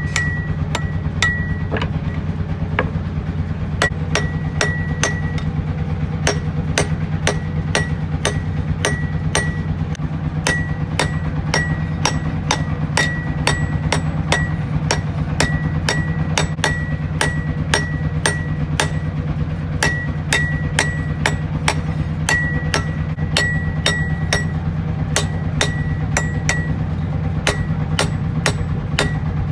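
Hand hammer striking a steel sickle blade on an anvil block, about two blows a second, each blow with a short metallic ring. A steady low hum runs underneath.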